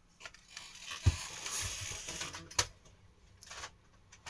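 Handling noise: rustling, with a dull knock about a second in and a sharp click a second and a half later, as album cases are moved and put down close to the microphone.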